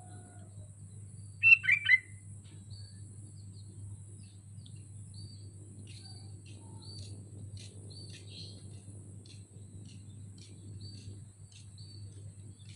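Sooty-headed bulbul calling: a loud quick burst of about three notes near the start, then many short, softer high chirps repeating.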